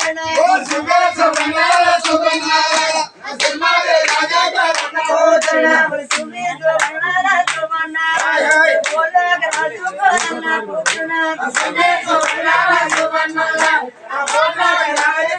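A group of men singing a folk chant together to steady rhythmic hand clapping, with short breaks in the singing about three seconds in and near the end.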